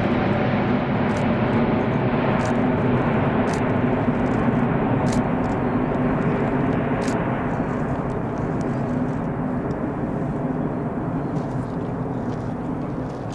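Airbus A380's four Rolls-Royce Trent 900 turbofans at climb power as the airliner climbs away, a steady jet engine noise that slowly fades, its higher hiss dying away about halfway through.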